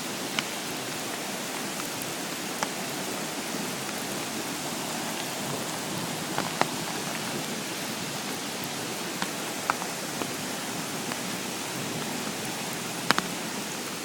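Steady rain falling, with scattered sharp drops striking close by.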